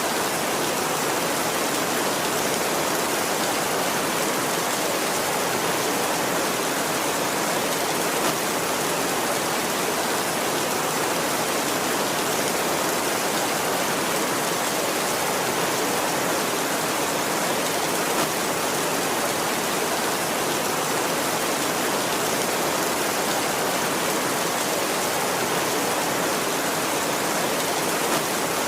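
Heavy rain drumming steadily on a tin roof, a dense even hiss with no thunder.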